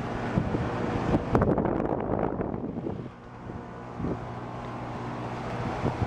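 Nordyne air-conditioner condensing units running: a steady compressor hum under the fan's rush of air, with wind on the microphone. A few knocks sound in the first half, and the sound drops a little about halfway through.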